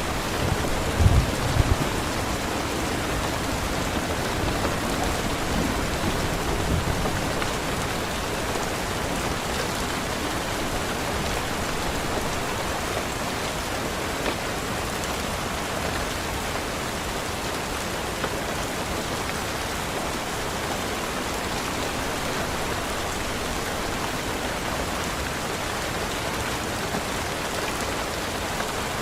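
Steady rain falling and pattering on surfaces, an even hiss throughout. There are a few low thuds in the first couple of seconds and again around six seconds in.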